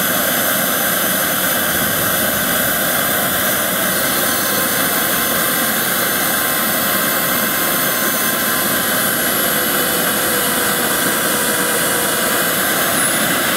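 Simjet 2250 model jet turbine running steadily: a loud rush with a thin, high whine on top. Near the end the whine starts to glide in pitch as the turbine changes speed.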